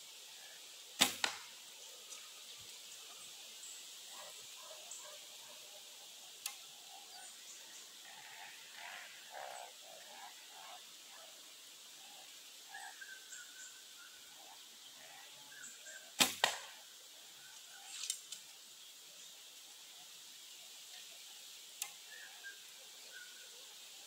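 Two shots from a traditional bow, about fifteen seconds apart. Each is a sharp snap of the string on release, followed a fraction of a second later by a second, softer knock. Faint bird chirps between the shots.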